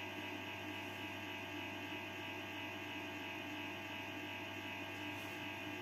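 PWM solar inverter running with a steady, even electrical hum.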